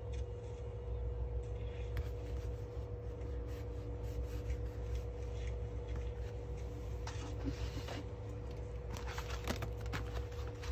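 Fingertips rubbing and pressing washi tape down onto a paper notebook page, with faint scrapes and taps, then louder rustling and scraping of paper as the notebook is picked up and handled near the end. A steady low hum runs underneath.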